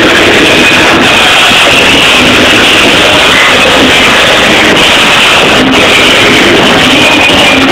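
Loud music recorded on a phone, so hot that it runs constantly near full scale and blurs into a dense, distorted wash with no clear breaks.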